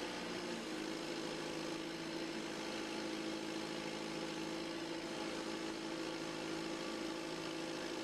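John Deere 510D backhoe loader's turbocharged diesel engine running steadily at a constant speed while the front loader bucket is tipped to dump fill.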